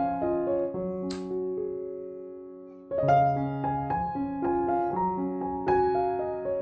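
Background piano music: soft notes and chords, one chord held and fading for about two seconds before the playing resumes.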